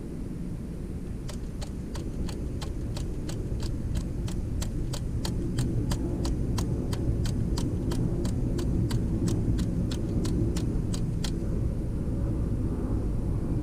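3D-printed split-flap display flipping: its flaps snap over one after another in an even run of sharp clicks, about three a second, stopping a couple of seconds before the end. A steady low hum underlies it.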